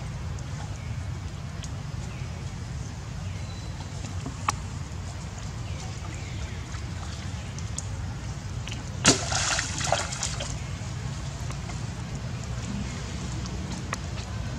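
Monkeys splashing and wading in shallow muddy water, with small sloshes and a louder burst of splashing about nine seconds in.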